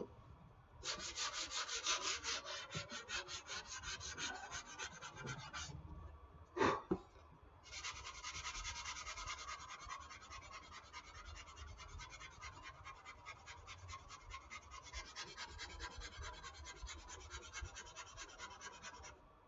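Hand sanding dried wall spackle filler on a foam model-airplane wing with 220-grit dry sandpaper, smoothing down the excess putty: quick back-and-forth strokes, several a second, in two long runs. A brief pause about six seconds in holds one short sharp noise.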